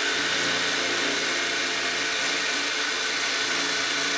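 DeWalt DCD778 18-volt cordless drill's brushless motor running steadily under load as the bit drills into a metal magnet. It keeps turning without cutting out, now that the loose motor connector behind its fault has been reseated.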